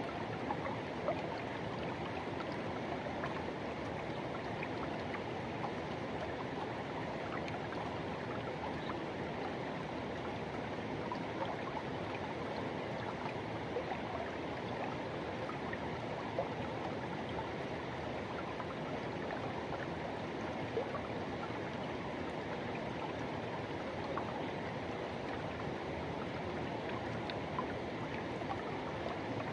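Forest river rushing: a steady, even rush of flowing water, with small splashes here and there.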